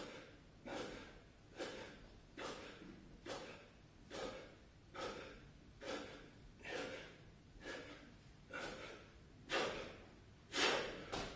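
A man's heavy, rhythmic breathing from exertion during push-ups: short, sharp breaths at an even pace of a little more than one per second. The breaths come a bit stronger near the end.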